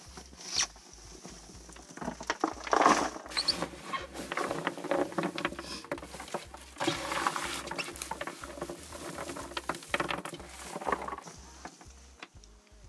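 Dry hay and straw rustling and crackling in irregular handfuls as old, soiled bedding is pulled out of a rabbit hutch by hand.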